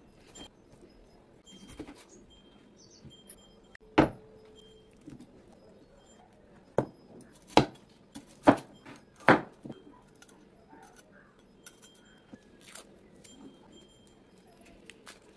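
Broad-bladed kitchen knife chopping down onto a wooden cutting board: about five sharp knocks, spread from about four seconds in to just past nine, as small red onions and ginger are cut. Near the end, faint crackling of dry onion skin being peeled by hand.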